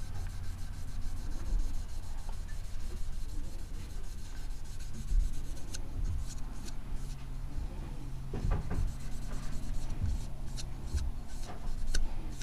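A cotton ball wetted with acetone rubbed back and forth over a plastic shotgun hull, wiping off the printed lettering, with scattered small clicks and scuffs from handling the hull.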